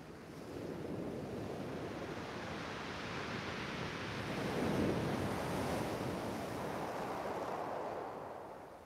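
Sea waves breaking on a shingle beach: the surf swells to its loudest about halfway through and eases off near the end.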